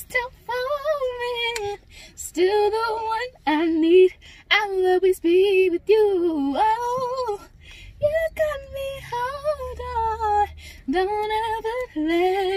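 A female voice singing a melody in short phrases, with held, wavering notes and brief breaks between them.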